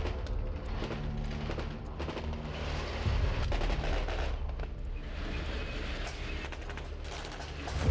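Rapid rifle and machine-gun fire, many shots in quick succession, over the low rumble of a tank's engine and tracks.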